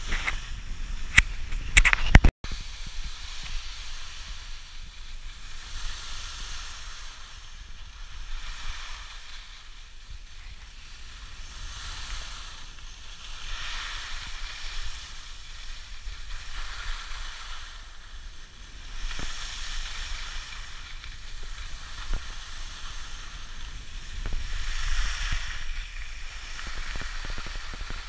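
Skis scraping and carving over packed snow, a hiss that swells and fades with the turns, over a low rumble of wind on the microphone. A few sharp knocks about two seconds in.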